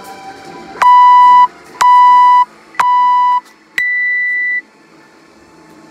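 Workout timer's start countdown: three short, steady beeps about a second apart, then a longer, higher beep that signals the start of the workout.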